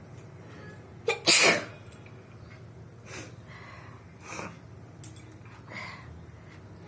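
A person sneezes once loudly about a second in, a sharp catch and then the explosive 'choo'. Three much softer short breathy noises follow.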